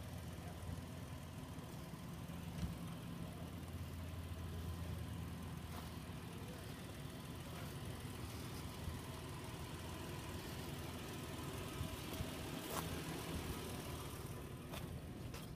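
Fourth-generation Toyota 4Runner's engine running steadily at low speed as the truck crawls over rocks, with a few sharp clicks.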